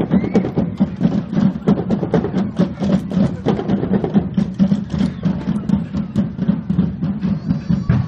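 Procession band music with busy, rapid drumming, and crowd voices beneath it.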